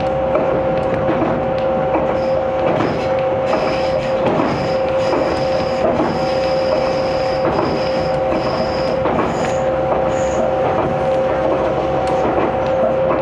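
Aizu Railway 6050 series electric train heard from inside the carriage while running at speed: a steady rumble with a constant two-note hum, irregular clacks from the wheels on the track, and a thin high wheel squeal that comes and goes through the middle.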